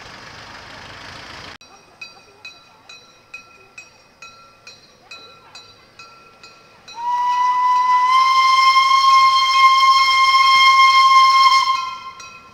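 A Unimog truck's diesel engine runs for the first second and a half. Then a level-crossing bell rings about twice a second. About seven seconds in, a steam locomotive's whistle sounds one long blast of nearly five seconds over the bell, rising slightly in pitch as it starts.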